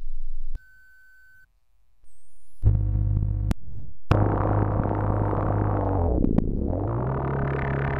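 Synthesizer patches bred by the Trilobite software modular synth's evolution engine, auditioned one after another. A loud buzzing tone cuts off just after the start, and a thin high beep sounds in a short quiet gap. About two and a half seconds in, a new evolved patch starts: a dense droning texture over a low bass note that dips and then steps up near the end.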